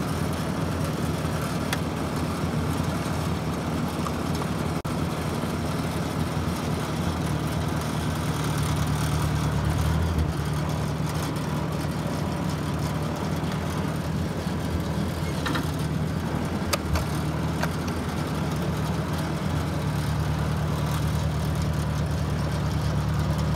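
Old Ford Workmaster 641 tractor's four-cylinder engine running steadily while the tractor is driven in gear, with a few light knocks along the way.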